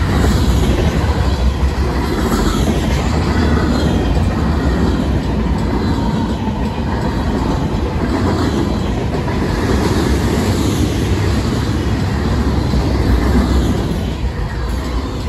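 Freight cars of a Union Pacific mixed freight train rolling steadily past, a constant low rumble with wheels clacking over the rail joints. Railroad crossing bells ring steadily underneath.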